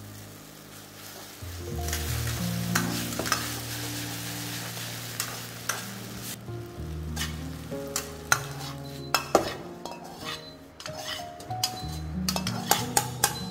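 Noodles and cabbage sizzling in a hot iron pan as they are stir-fried, a ladle scraping and clacking against the pan, with the sharpest clacks in the second half.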